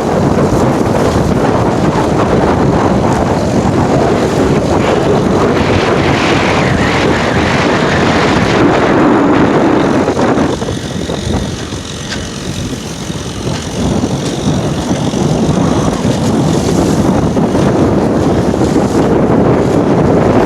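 Heavy wind buffeting the microphone over a small 1.5 HP Honda outboard motor running steadily as the boat rides through rough waves. The wind eases for a few seconds about halfway through.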